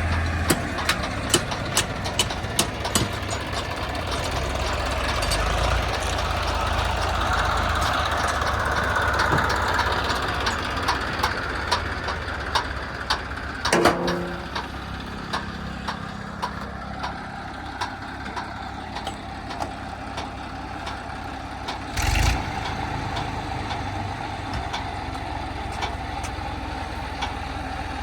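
Diesel engines of heavy farm and construction machinery running, with scattered clicks and clanks and two louder knocks, one about halfway through and one later on.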